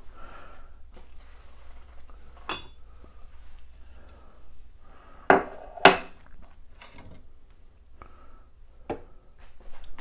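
A few sharp knocks and clatters of items handled and set down on a kitchen counter, the two loudest close together a little past the middle. Under them runs the low steady hum of an espresso machine pulling a shot.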